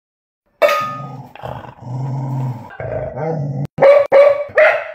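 English Springer Spaniel grumbling and growling in low, drawn-out rumbles, then barking loudly three times near the end. A sharp clack comes just before the barks as the stainless-steel bowl it was holding drops to the tile floor.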